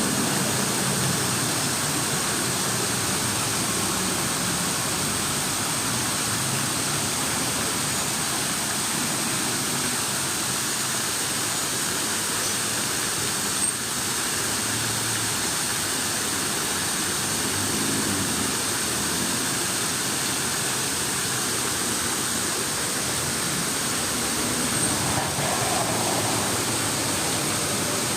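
Rushing water making a steady, even hiss.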